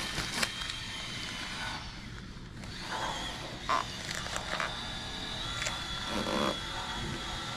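Light handling noises from fitting a Tesla Model 3 rear quarter glass: masking tape being handled and hands pressing on the glass. A few brief scrapes and taps sound over a faint steady high tone.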